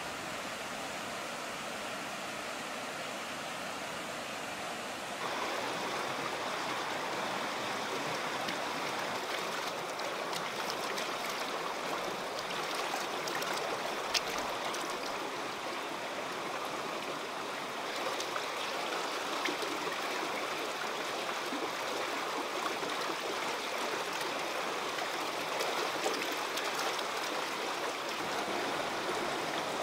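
Shallow stream rushing over rock cascades, a steady rush of water that gets louder about five seconds in. There is a single brief click about halfway through.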